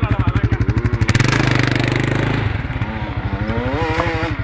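Off-road vehicle engine idling with an even pulse, then the throttle opens about a second in and it runs louder and higher.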